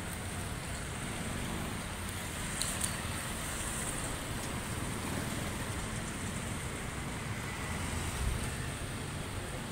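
Steady street traffic noise, a low rumble of passing vehicles with no single event standing out.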